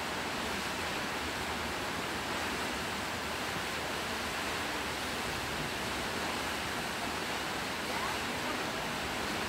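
Waterfall pouring steadily into a rocky pool: a constant, even rush of falling water.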